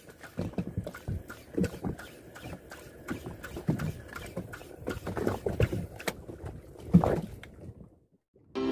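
Irregular knocks and clatter aboard a small fishing boat, with a louder knock about seven seconds in, then fading out.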